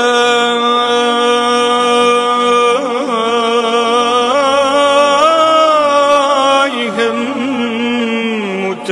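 Male voice singing a long, wordless melismatic phrase of an Islamic tawshih. It holds one note for about three seconds, then winds through wavering turns that rise in pitch midway, and settles on a lower held note near the end.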